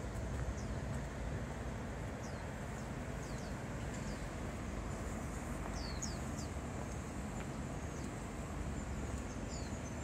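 Steady low outdoor rumble of open-air ambience, with a few short, high, falling chirps from small birds scattered through it, a pair or trio at a time.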